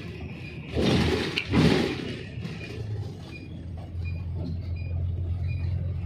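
City bus running, heard from inside the cabin: a steady low engine hum with two louder rushes of noise about a second and a second and a half in. Faint short beeps repeat about every three-quarters of a second.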